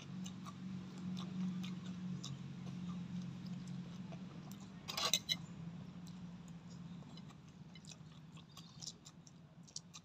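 A man chewing a mouthful of papaya salad, with small wet mouth clicks, and a low steady hum through the first half. A sharper click about five seconds in.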